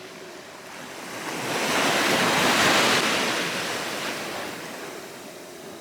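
Ocean surf: a single wave breaking and washing in, building about a second in, loudest near the middle, then fading away.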